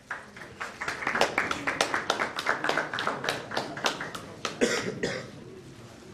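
Audience hand clapping, an uneven patter of sharp claps several a second that fades out about five seconds in, with one short cough-like burst near the end of the clapping.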